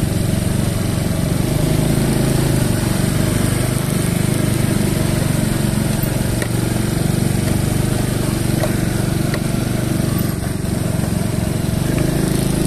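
Small motorcycle engines running under load while riding uphill, a steady drone that holds throughout.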